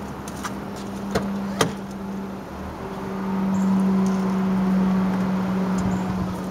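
A 2003 Saab 9-5 2.3T being started from cold with difficulty: a few sharp clicks, then a steady hum that swells about halfway through. The hard morning start is one the owner is tracing through the fuel rail pressure and a check valve.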